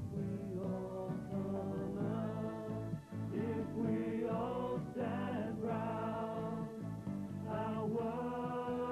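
Music: several voices singing together in held, choir-like harmony.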